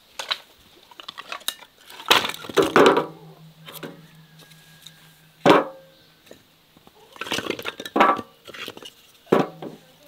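Split wooden kindling being handled and laid into a metal-lined brick fire pit: a series of sharp wooden knocks and clinks at uneven intervals, some followed by a short metallic ring.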